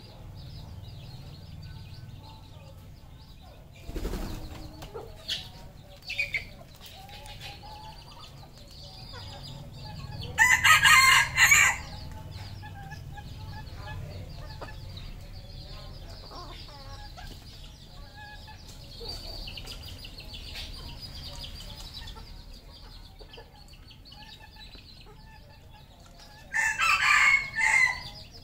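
Red junglefowl roosters crowing twice, each crow about a second and a half long, with soft clucking and chirping between the crows. A single thump comes about four seconds in.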